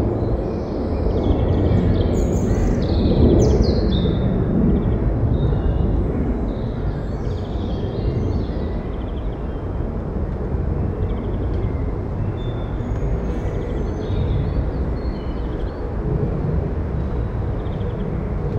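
A steady low rumble of background noise with small songbirds chirping and calling over it; the calls come thickest in the first few seconds, with a louder falling call about three seconds in.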